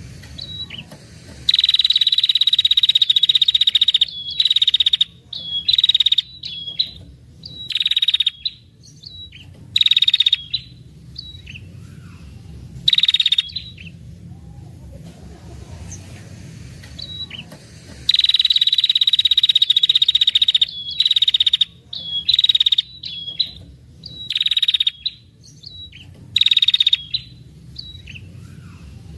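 Female tailorbird ('prenjak kepala merah') giving its long rapid rattling trill ('ngetir'), a buzzy call near 4 kHz repeated in bursts: two long runs of about three seconds and many short ones between. This is the call used to lure males.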